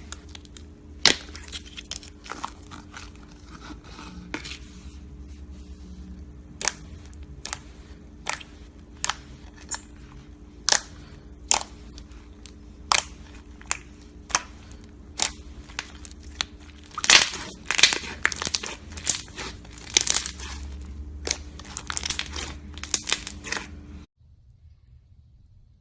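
Slime being pressed and squeezed by hand, giving sharp pops at an even pace of a little over one a second, then a denser run of crackling pops. The sound cuts off abruptly near the end.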